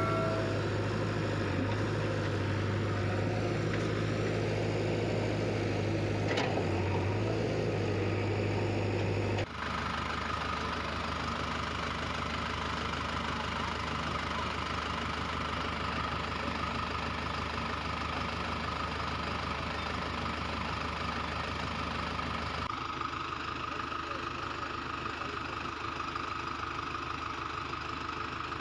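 Engine idling steadily, the sound changing abruptly twice, about nine seconds in and again about twenty-three seconds in, as if cut between takes.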